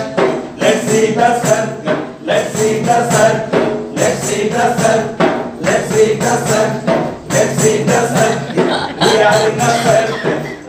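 Dance music with a steady percussive beat, bright jingly percussion strokes and a melody line running over it.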